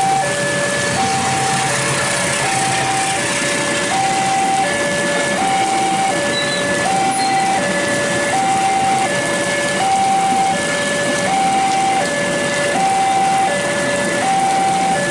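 Railway level-crossing warning alarm sounding a steady two-note electronic tone, high and low notes taking turns about once every one and a half seconds, over the rumble of a freight train of tank wagons rolling past and the hiss of heavy rain.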